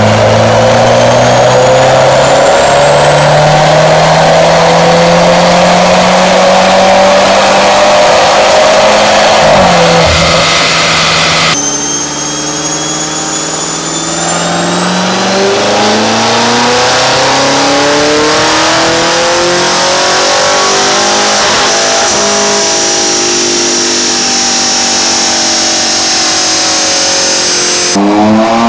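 Performance BMW engines run hard on a chassis dynamometer in separate clips. The first engine climbs steadily in pitch under full load for about ten seconds, then drops off. After a cut, a second car builds from quieter, rises to a peak and winds back down, with a high whine from the dyno rollers and tyres, and a third car starts revving near the end.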